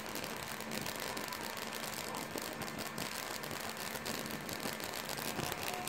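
High-voltage arc from a flyback transformer driven by a ZVS driver, burning steadily with a hissing buzz and fine rapid crackle. The driver is running without its bucket capacitor.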